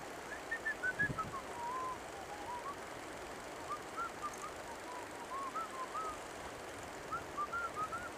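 A songbird singing phrases of short, slurred whistled notes over the steady rush of river water.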